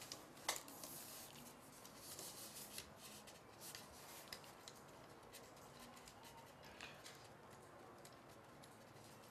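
Faint handling sounds of small parts: light clicks and scrapes as a small metal screw is turned by hand through a plastic gimbal clamp joint, with one sharper click about half a second in.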